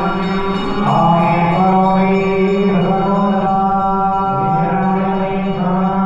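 A group of male priests chanting mantras together in a continuous held chant that moves between a few pitches.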